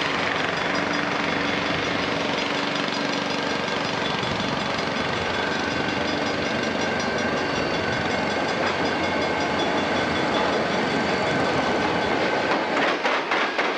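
Union Pacific diesel locomotives running past close by, a loud steady engine and rail noise. About a second before the end, wheels start clicking over rail joints in a quick, regular clickety-clack.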